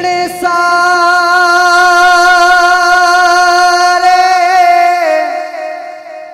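A man singing a Punjabi naat, holding one long steady note for about four and a half seconds. The note then steps down slightly and fades near the end.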